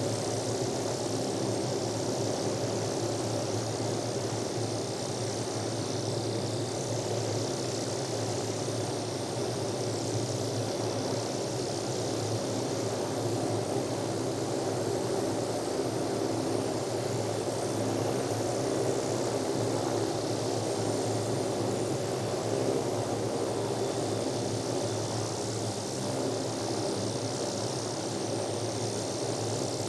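Bell 505 Jet Ranger X helicopter's turboshaft engine and rotor running steadily: a high turbine whine over a low, even rotor drone, with no change in pitch or loudness.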